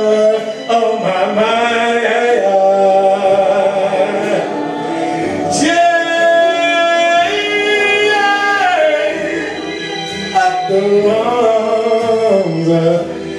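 A man singing live into a handheld microphone, with long held notes; about halfway through he climbs to a high held note and then slides back down.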